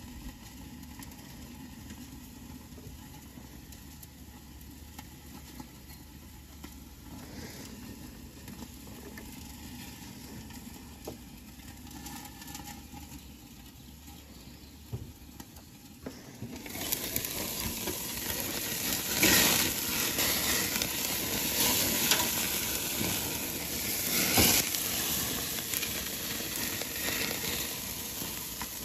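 Rib-eye steaks sizzling on a gas grill over open flames. A low steady rumble gives way, a little past halfway, to a much louder hiss of sizzling, with a couple of sharper knocks in it.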